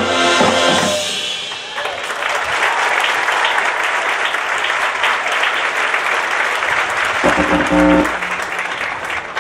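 Marching band brass and drums ending a phrase on a chord, then the audience applauding. A short pitched note sounds briefly about seven seconds in.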